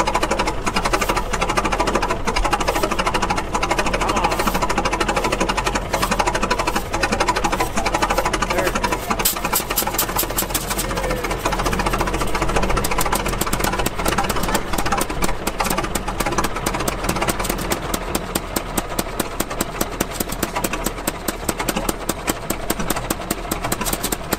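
Antique two-cylinder vertical gas engine running with a fast, even mechanical clatter. In the last third it gets a little quieter and its beats stand out more distinctly.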